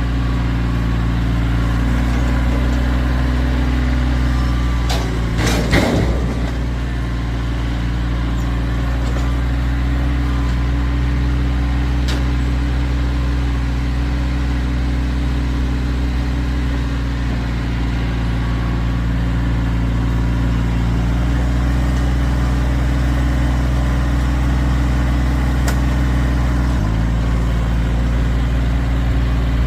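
Kioti tractor's diesel engine running steadily, with a short cluster of knocks about five to six seconds in. About 27 seconds in, the engine speeds up.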